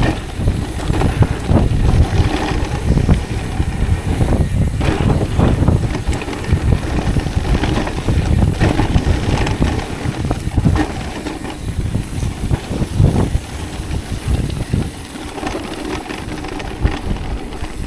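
Wind buffeting the microphone over the rolling and rattling of an e-mountain bike's tyres and frame on a damp dirt trail during a fast descent, with irregular knocks from bumps and landings.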